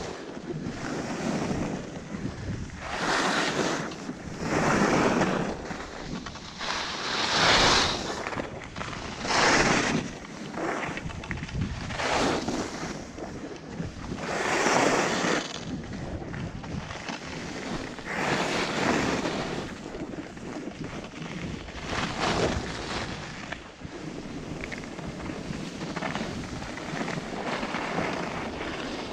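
Skis scraping and hissing over churned-up piste snow through a series of turns, a swell of noise with each turn every two to three seconds, easing off over the last few seconds. Wind buffets the microphone throughout.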